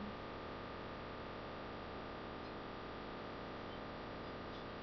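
Steady hiss and hum of the recording's microphone and electronics, with a faint steady high whine running through it; nothing else sounds.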